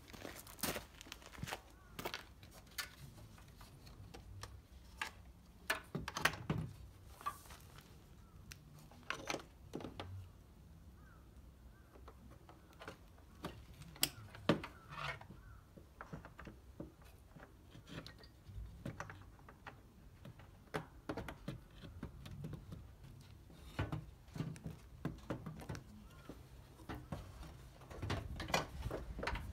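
Irregular clicks, taps and knocks of a Suzuki Wagon R's plastic headlight unit being handled and fitted into its mounting against the body, a few sharp knocks every second or two.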